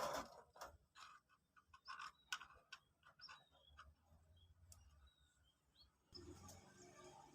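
Faint, short, high-pitched peeps of a two-day-old common moorhen chick, repeated in quick runs, with soft clicks scattered among them. A low background hum comes in about six seconds in.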